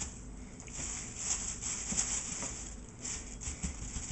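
Light scrapes and small knocks of a utensil working in a frying pan over a faint hiss, as flour-dredged chicken that stuck to a pan not yet hot enough is worked loose.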